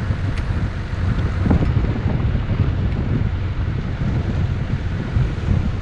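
Wind buffeting the microphone of a camera mounted outside a moving 4x4, over the vehicle's steady low rumble as it drives along a sandy track.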